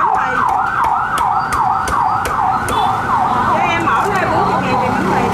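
An electronic siren sounds loudly in a fast yelp, its pitch sweeping up and down about three times a second. Over it come sharp knocks of a cleaver chopping roast pork on a wooden block.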